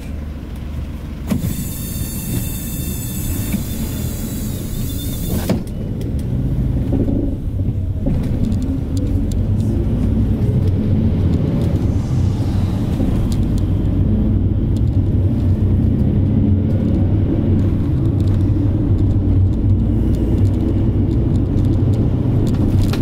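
Minibus engine and road noise heard from inside its cabin as it pulls away from a stop and picks up speed, the low rumble growing louder over the first several seconds. Near the start a high hiss lasts about four seconds and ends with a click.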